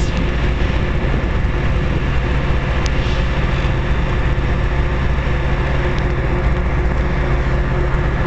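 VIA Rail F40PH-2 diesel-electric locomotive heard at close range, its EMD 16-cylinder two-stroke diesel running at a steady, low-pitched drone.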